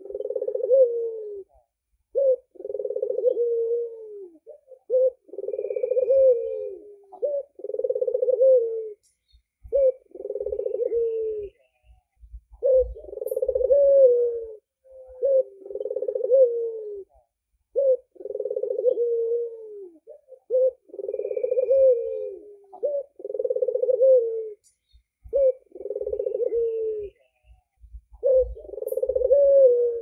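Albino Barbary dove (puter) cooing over and over: low, rolling coos about a second long, each rising then falling, coming in runs separated by short pauses.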